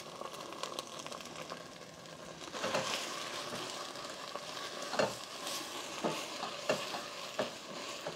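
Green curry paste, onions and Thai basil sizzling as they fry in coconut cream, with several stirring strokes through the pan. This is the 'kua' stage, where the paste's aromatics fry out in the oil separating from the coconut cream.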